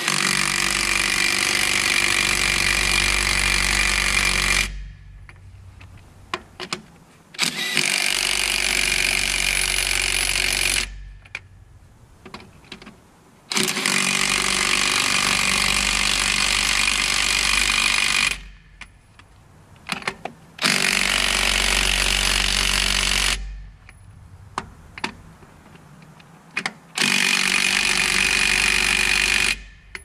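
Impact wrench running lug nuts onto a truck's dual rear wheel: five hammering runs of a few seconds each, with short pauses between them filled by small clicks of nuts and socket.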